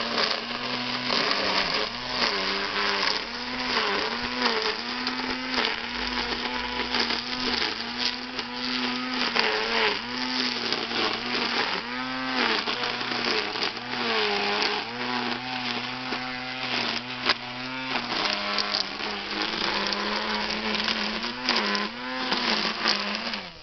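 Cordless battery-powered string trimmer running, its electric motor whining steadily as the nylon line cuts grass, with a dense hiss and crackle from the cutting. The pitch dips briefly again and again as the line bites into thicker grass, and the trimmer cuts off at the very end.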